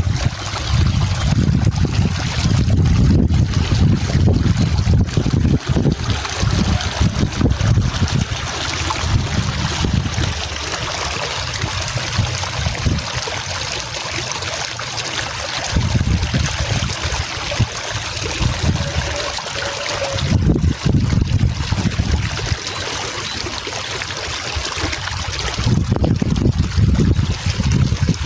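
Steady trickling of running water, with gusts of wind buffeting the microphone now and then, low rumbles that come and go.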